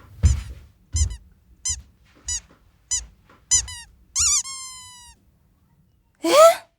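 Comedic cartoon squeak sound effects: six short squeaks at an even pace, about one every two-thirds of a second, then a longer squeak that slides down in pitch and fades, and after a short gap one short loud rising sound near the end.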